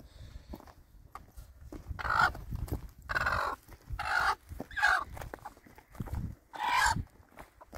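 Chickens calling: about five loud, short squawks a second or so apart, over a low background rumble.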